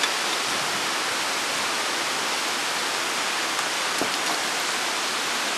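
Steady, even hiss with no pitch or rhythm, and a faint click about four seconds in.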